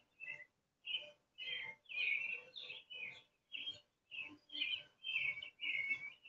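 Short, high chirps repeated about twice a second, with brief silences between them; several dip slightly in pitch.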